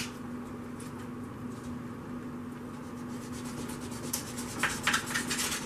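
Kitchen knife cutting through raw chicken wings on a wooden cutting board: a few short scraping strokes of the blade against the board about four seconds in, over a low steady hum.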